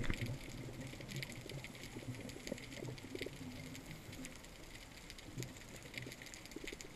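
Underwater ambience recorded through a camera housing: a steady low rumble with scattered crackling clicks.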